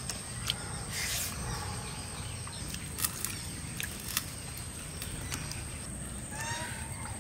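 Quiet rural outdoor ambience: a low steady rumble with a few soft clicks, and a short bird chirp near the end.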